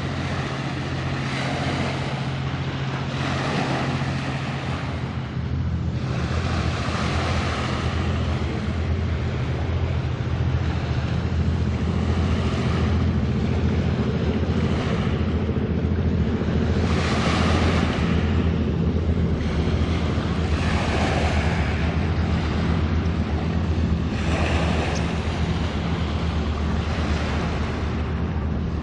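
Large car ferry Sunflower Pearl's engines droning steadily as she passes, a low hum of several steady tones. Over it a rushing wash of water and wind swells up every few seconds.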